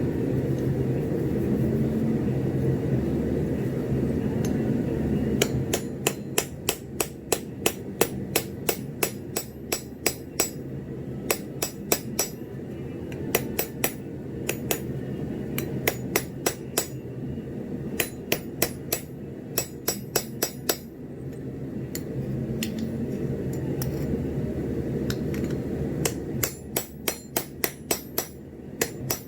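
Blacksmith's hammer striking steel on an anvil while forging a cutter, in runs of quick ringing blows, about three a second, with short pauses between runs. A steady low rumble fills the first five seconds and goes on fainter under the blows.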